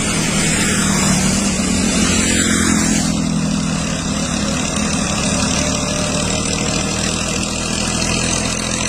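Sonalika tractor's diesel engine running steadily.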